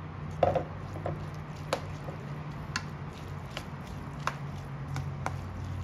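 Wooden spoon stirring a moist tofu and vegetable dumpling filling in a metal bowl: soft squishing, with sharp taps of the spoon against the bowl about once a second, the loudest about half a second in. A steady low hum runs underneath.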